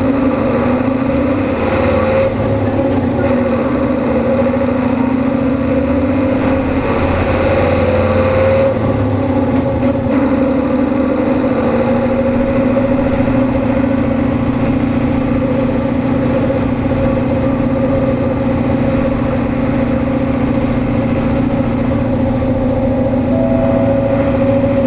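Hino HU2ML Blue Ribbon city bus under way, its engine and drivetrain giving a loud, steady two-pitched whine over the running noise, the unusual noise this prototype low-floor bus is known for, which the uploader puts down to its rearranged engine layout. The sound changes character about two seconds in and again around nine seconds in, where the higher hiss falls away.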